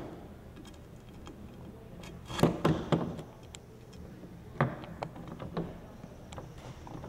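Grip tape being cut with a knife blade and pressed into place by hand: short scratchy scrapes and clicks in two clusters, about two and a half seconds in and again around five seconds in.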